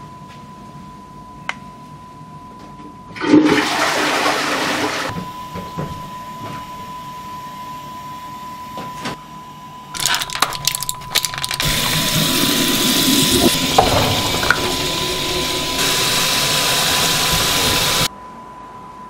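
A steady high-pitched tone sounds throughout, under two spells of rushing water. The first starts sharply about three seconds in and fades over several seconds. The second, longer and louder, comes in with clatters about ten seconds in and cuts off suddenly near the end.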